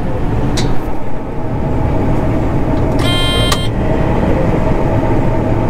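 John Deere combine harvester running steadily under a dense, loud machine drone. One electronic warning beep sounds about three seconds in.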